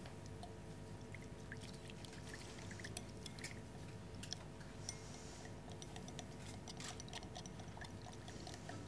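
Faint scattered clinks and light taps of glassware and tableware being handled at a dining table, over a steady low room hum.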